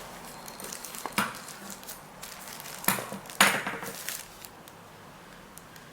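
Hands opening a phone's packaging: scattered small clicks and rustling, a sharp knock about a second in, and two louder scrapes about three seconds in, the second the loudest and drawn out for half a second.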